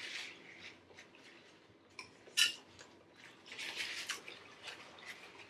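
Forks scraping and tapping on plates while eating, with a sharp clink about two and a half seconds in, the loudest sound.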